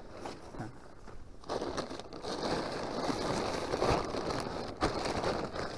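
Tent fabric crinkling and rustling as it is folded and packed, growing busier about a second and a half in, with a few light knocks.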